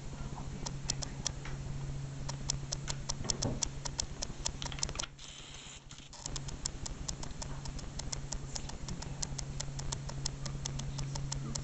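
Light, quick tapping on a keyboard, about three to five taps a second, over a steady low electrical hum. The tapping and hum drop away for about a second around five seconds in.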